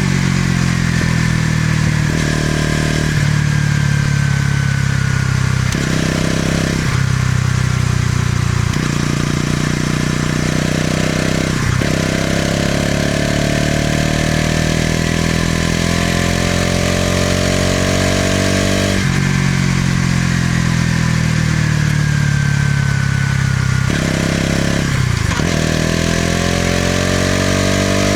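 Bajaj Pulsar NS200's single-cylinder engine and exhaust while riding. The revs climb and fall as it accelerates and eases off, with a brief break in the sound twice, typical of gear changes.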